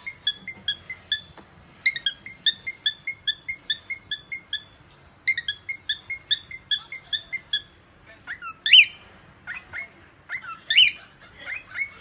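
Cockatiel chirping in quick, even runs of short chirps, about four a second, broken by brief pauses. From about eight seconds in it switches to louder rising whistles.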